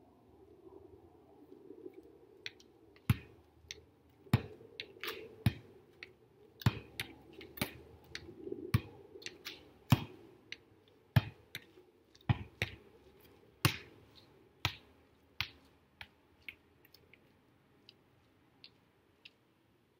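Volleyball being struck over and over by hand and forearm, a sharp smack about once a second as it is passed up again and again. The hits stop about three-quarters of the way through, leaving a few faint taps.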